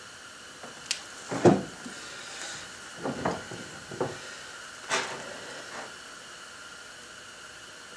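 Handling knocks on a kayak's plastic deck and mounting boards: a sharp click about a second in, a loud clunk just after, then a few lighter knocks, over a steady hiss.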